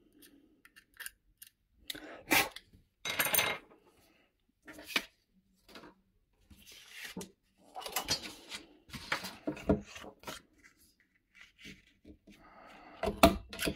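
Handheld paper corner punch clacking as it is pressed and handled, with paper rustling between the clicks. The clicks come irregularly, and a sharp pair of clacks near the end is the loudest.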